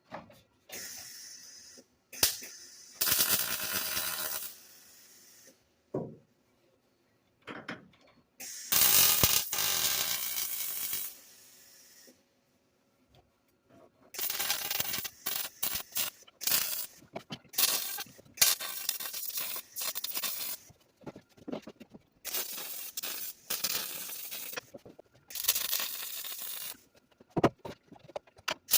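MIG welder arcing in stop-start bursts, a crackling hiss that runs for a second or two at a time with short pauses between, as a steel brace tube is tacked and welded into a car's chassis.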